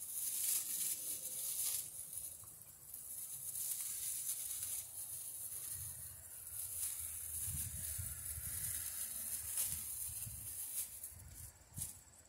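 Clear plastic parts bag crinkling and rustling as it is handled and opened, with irregular crackles.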